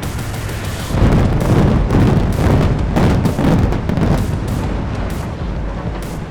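Building demolition implosion: a rapid string of explosive charges cracking, running into a deep rumbling collapse that swells about a second in and slowly dies away over the last couple of seconds.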